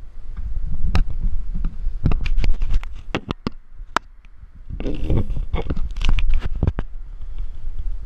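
A screwdriver and a circuit card being handled and worked: a quick run of sharp clicks and knocks, with a scraping burst about five seconds in, over a low rumble.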